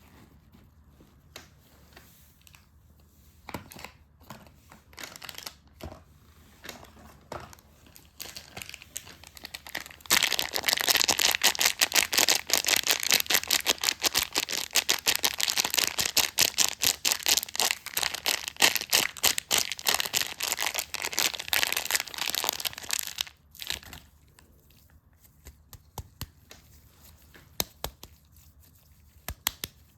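Close-up wrapping being crinkled and torn off a soap: faint scattered rustles and clicks at first, then a long spell of loud, dense crackling crinkles from about a third of the way in to about three quarters, then sparse light taps and rustles.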